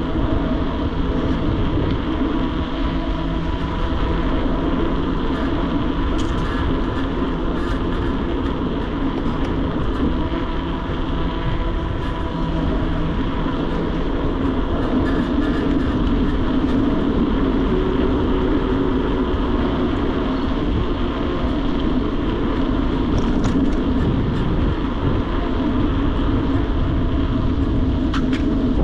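Steady riding noise from a moving mountain bike: wind rushing over the camera microphone, with the even hum and rumble of the tyres rolling on the road.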